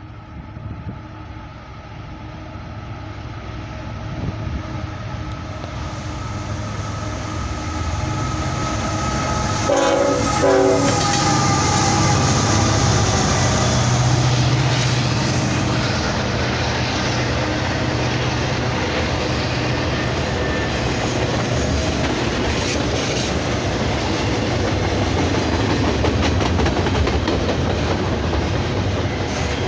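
Norfolk Southern freight train approaching and passing: the lead diesel locomotive's horn sounds as it draws closer and louder, with a few short horn blasts about ten seconds in. Then comes the locomotive's engine drone and the steady rumble and clatter of freight cars rolling by.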